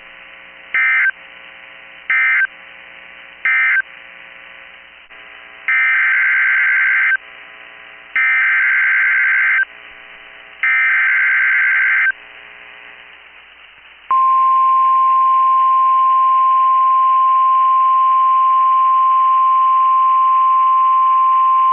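NOAA Weather Radio alert signalling. First come three short squawks of SAME data (the end-of-message code closing the previous warning), then three longer SAME data squawks (the header of the next warning). About two-thirds of the way through, the steady 1050 Hz warning alarm tone begins.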